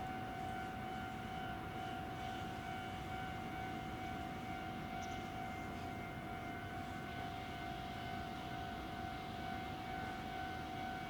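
A steady, high-pitched electrical whine: one unbroken tone with fainter overtones, over a low background rumble.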